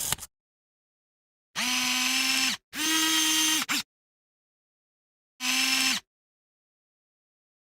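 Digital camera's lens zoom motor whirring in three short runs of about a second each, a steady pitched whir; the second run sits slightly higher in pitch and ends with a small click.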